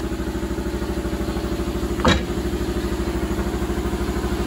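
Air compressor running steadily with a rapid, even pulsing. A single sharp metallic knock comes about two seconds in.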